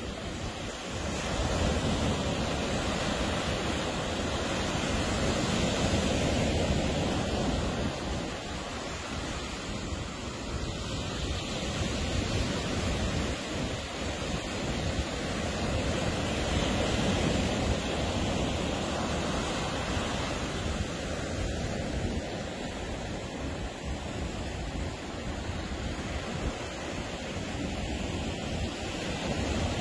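Ocean surf breaking and washing on a beach, a steady rush that swells and eases every several seconds.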